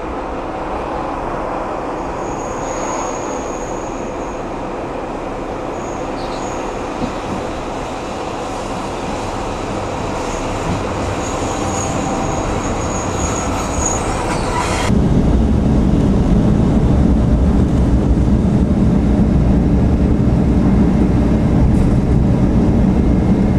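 Sanriku Railway diesel railcar drawing into a station, its running noise steady with high, thin squeals from the wheels or brakes, once early on and again a little past ten seconds in. About fifteen seconds in, the sound cuts abruptly to a louder, low diesel drone heard from inside the cab.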